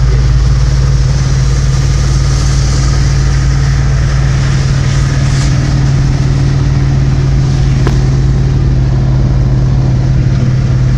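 Steady low drone of a vehicle driving through heavy rain, over a constant hiss of rain and wet road. A single sharp click comes about eight seconds in.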